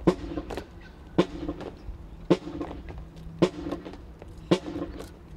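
Military marching band playing a march: a sharp drum strike about once a second, each followed by short brass notes, over a steady low note.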